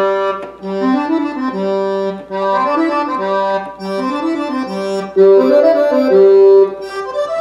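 Roland FR-4X digital accordion playing a short phrase several times over, with a brief break between repeats, in accordion reed voices. The voice changes from repeat to repeat as the accordion registers are stepped through, and the loudest repeat comes about five seconds in.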